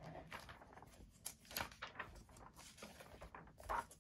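Glossy magazine pages being turned by hand: faint paper rustling with a few short flicks and slaps of the pages.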